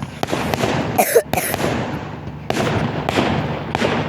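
Aerial fireworks going off: a run of sharp bangs in the first second or so, then from about two and a half seconds in a denser spell of crackling reports.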